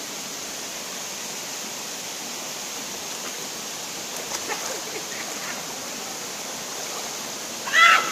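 Steady rush of a shallow forest stream running over rock cascades into a pool. Near the end a person gives a short, loud high-pitched cry.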